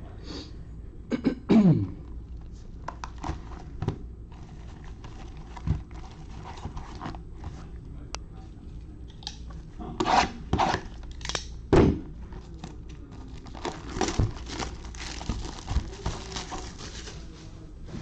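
Knocks, scrapes and crinkling from handling a trading-card box and its packs on a table. The knocks are irregular, with the loudest two about ten and twelve seconds in.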